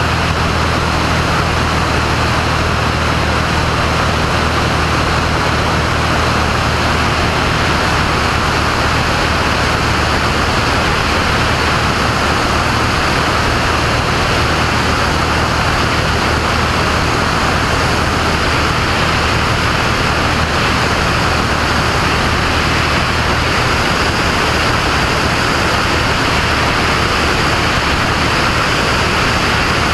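Single-engine propeller plane in cruise: a steady engine and propeller drone under a loud rush of airflow. The low hum of the engine weakens about two-thirds of the way in.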